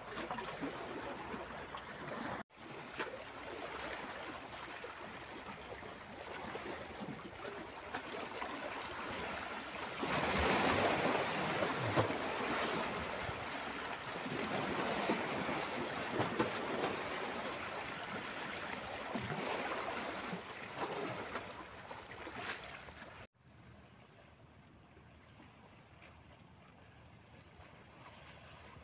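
Small sea waves washing and splashing against shoreline rocks, a steady rushing wash that swells loudest about a third of the way in. About three-quarters of the way through it cuts off abruptly to a much quieter, steady hiss of distant sea.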